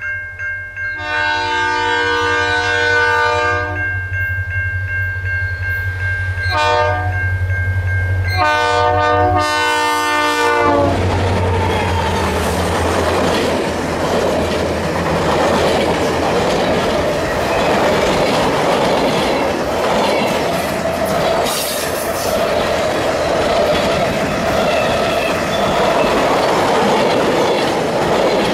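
Rocky Mountaineer passenger train approaching, its locomotive horn sounding a long blast, a short one, then another long one over a fast-ringing bell and the low hum of the diesel engines. After the horn stops, the locomotives and a long string of bi-level passenger cars pass close by with a steady rumble and clatter of wheels on the rails, and a brief wheel squeal part way through.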